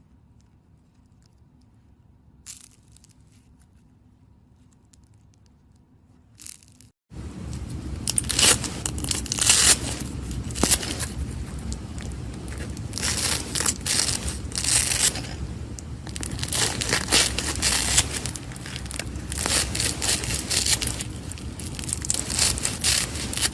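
Quiet for the first seven seconds, then slime being squeezed and mixed by hand, with dense crackling and many small popping clicks.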